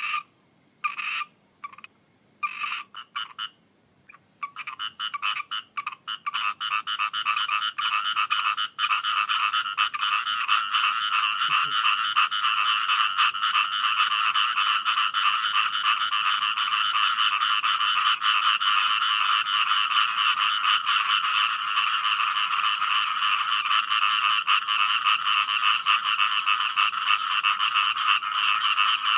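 Frogs croaking: a few separate calls at first, then from about five seconds in a dense chorus of rapid, overlapping pulsed calls that keeps on steadily.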